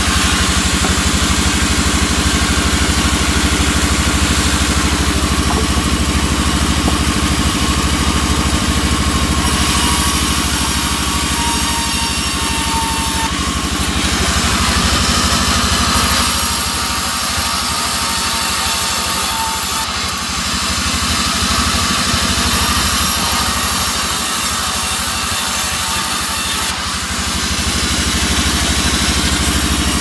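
Sawmill band saw running steadily, its blade cutting albasia wood into rafters over the steady hum of the machine's drive.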